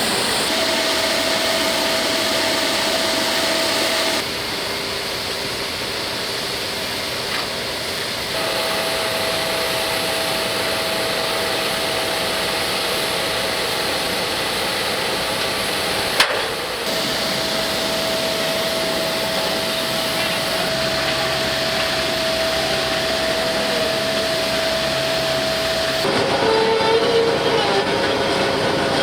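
Steady mechanical rushing noise with a constant high whine, typical of a large aircraft's engines running. It drops and returns abruptly at several points, with one sharp click about halfway through.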